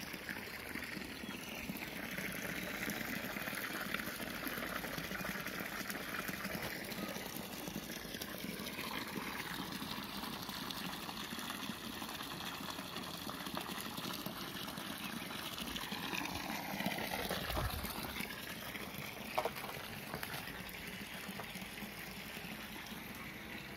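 Hot spring water pouring from a pipe into a concrete tank: a steady splashing rush of falling water, with one short knock about three-quarters of the way through.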